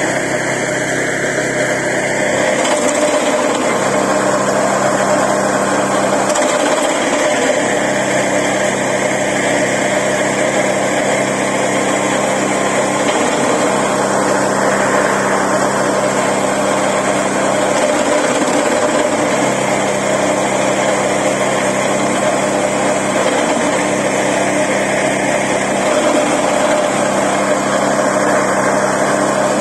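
Small single-cylinder petrol engine of a branch chipper running steadily at high speed. A few times, every few seconds, its low hum briefly drops out.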